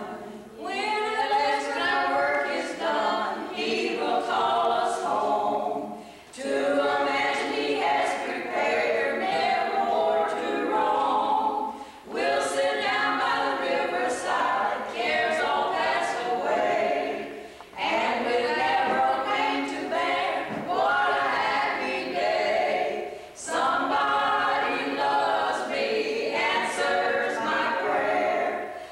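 A small mixed group of voices singing a hymn-like song together in harmony, unaccompanied, in phrases of about six seconds with brief pauses for breath between them.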